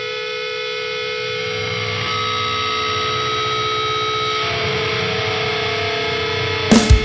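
Intro of a stoner/groove metal song: a sustained drone of several held tones over a noisy hum that swells slightly. Near the end the full band comes in with heavy drum hits.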